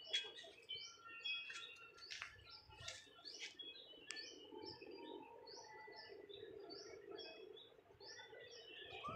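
Small birds chirping faintly: short high notes repeated in quick series, with a few sharp clicks in the first half.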